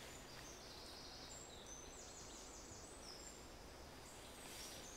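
Faint songbird singing in quiet woodland: short, thin, high-pitched whistled notes at varying pitches, with a quick run of repeated notes about two seconds in, over a soft steady background hush.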